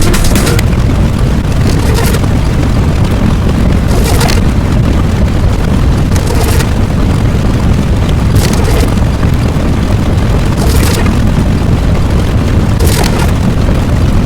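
Loud, continuous rumbling sound effect like a running explosion, with a short hissing, crackling burst about every two seconds.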